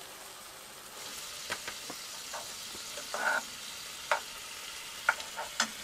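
Vegetables frying in a pan, the sizzle growing louder about a second in as canned crushed tomatoes go into the hot pan. A spatula scrapes and taps against the pan several times while stirring.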